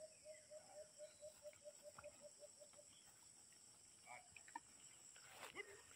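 Near silence: faint rural ambience with a steady high insect drone and a soft animal call repeated about five times a second for the first couple of seconds, then a few faint ticks.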